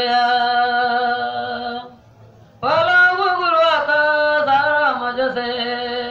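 A single voice chanting a prayer in long held notes: one phrase, a short pause about two seconds in, then a second phrase.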